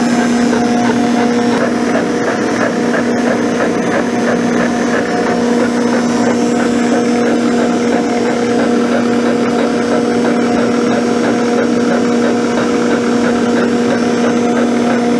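Milling machine spindle driving a 1¾-inch corn-cob roughing end mill through a cast iron straight-edge casting on a roughing pass about 30 thou deep. It makes a steady, even hum with a constant tone under the gritty grinding noise of the cut.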